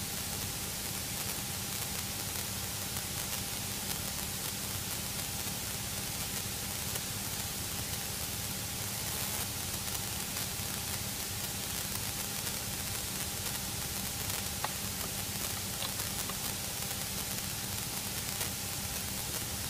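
Steady hiss with a low, even drone from the Cessna's piston engine at low taxi power, heard through the cockpit intercom.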